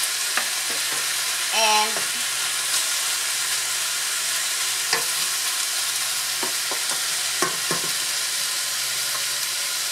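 Cubed chicken and butternut squash sizzling steadily in a stainless steel sauté pan while being stirred with a wooden spatula, which knocks and scrapes against the pan several times about halfway through.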